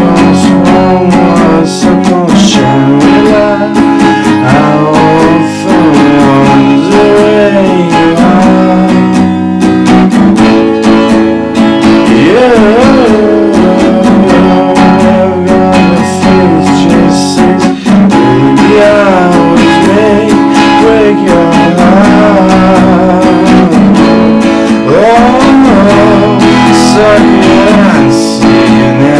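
Acoustic guitar strummed in a steady chord pattern, playing a song.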